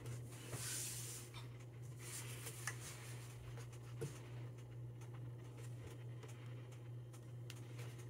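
Faint rustling and a few light taps of paper sheets being slid and lined up on the bed of a guillotine paper cutter, over a steady low hum.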